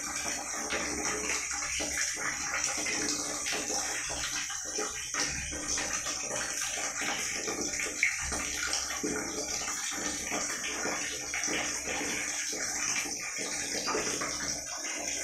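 Water running and splashing continuously.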